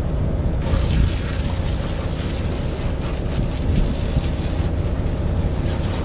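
Wind buffeting the microphone on an open fishing boat under way, over the rumble of the boat and the wash of the sea; a brighter hiss comes in about half a second in.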